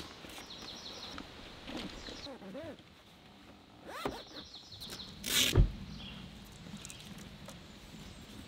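Thule Tepui rooftop tent being folded shut on a vehicle roof: fabric and cover handling with two short zipper runs, and one loud thump about five and a half seconds in.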